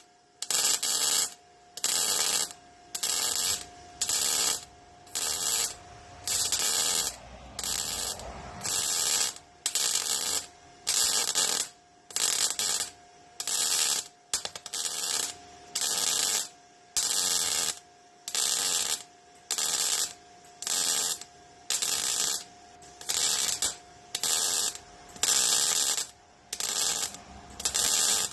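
Welder stitch-welding sheet steel floor panels in short crackling bursts, a little over one a second, each lasting about half a second to a second with brief pauses between, laying a seam in a series of tacks to avoid burning through the thin metal.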